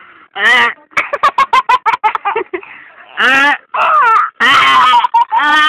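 A young child's voice: several high-pitched, wavering cries and squeals, after quick choppy vocal sounds in the first couple of seconds.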